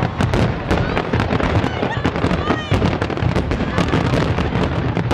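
Fireworks finale barrage: many aerial shells bursting in rapid, overlapping booms with no let-up.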